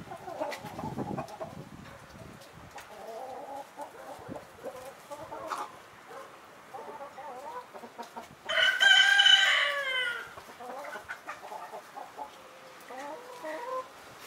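A Leghorn rooster crows once, a little past the middle: one loud call of under two seconds whose pitch falls away at the end. Soft, low clucking from the chickens goes on before and after it.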